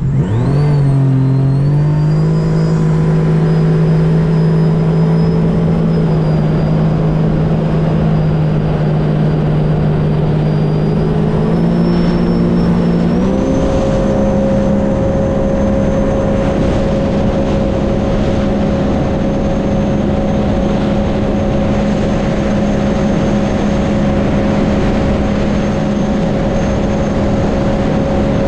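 Stage 1 2021 Sea-Doo RXT-X jet ski running at full throttle on a top-speed run, with the pump wedge fitted. The engine's pitch climbs quickly at the start and holds steady, then steps up again about halfway through and holds there.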